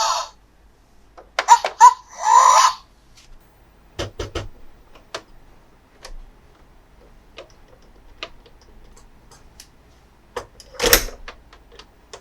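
A brief electronic toy sound effect about a second and a half in: short high-pitched voice-like chirps ending in one longer note. It is followed by scattered plastic clicks and taps from toy parts being handled, with a louder rattling knock near the end.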